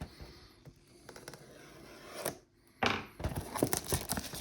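A cardboard model-kit box being opened and its packaging handled: faint handling at first, then from about three seconds in, rustling and crinkling with small clicks.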